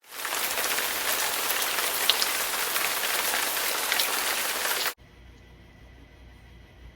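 A steady, rain-like hiss that cuts off abruptly about five seconds in, leaving only a faint low hum.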